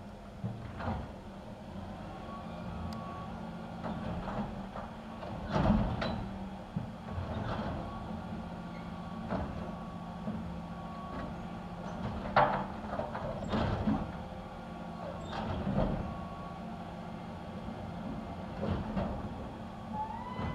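Dennis Elite 2 refuse truck running steadily at the kerb while its rear bin lifts tip wheelie bins, with repeated loud bangs and clatter as the bins hit the lift and are shaken out into the hopper.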